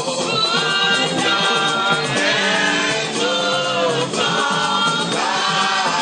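A congregation of men and women singing a gospel hymn together, many voices holding and sliding between long notes in continuous phrases.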